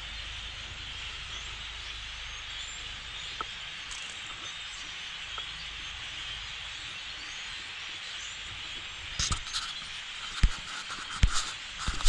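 A huge flock of birds calling all at once, a dense steady chatter that blends into a hiss, with a low rumble underneath. A few sharp knocks come in over the last few seconds.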